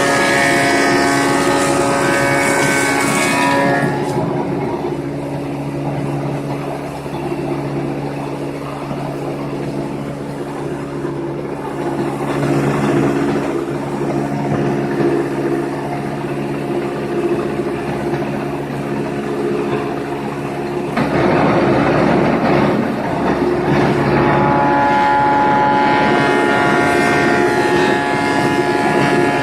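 Thickness planer running with a steady motor whine, planing wood. It cuts at the start and again from about two-thirds of the way through, louder and harsher while the board feeds through, and runs quieter in between.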